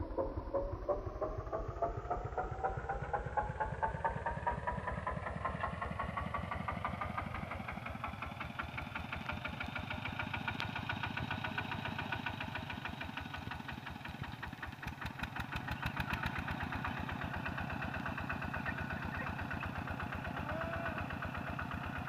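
Two-wheel walking tractor's single-cylinder diesel engine running with an even chugging beat, its speed climbing steadily over the first ten seconds or so and then holding at a faster, steady pace.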